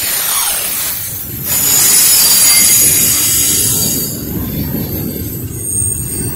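Double-stack intermodal freight train's container well cars rolling past: steel wheels on rail give a steady low rumble with a high-pitched wheel squeal over it, loudest from about one and a half to four seconds in.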